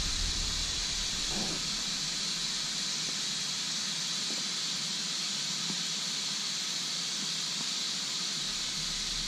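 A steady hiss with no engine running, and a faint low hum that fades out about a second and a half in and comes back near the end.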